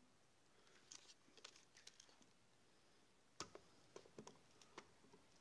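Faint clicks and handling noises as a film back is fitted to a Mamiya RZ67 camera body, with one sharper click about three and a half seconds in; otherwise near silence.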